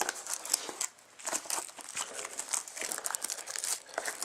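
Plastic wrapping crinkling and tearing in irregular crackles as a trading-card box is unwrapped.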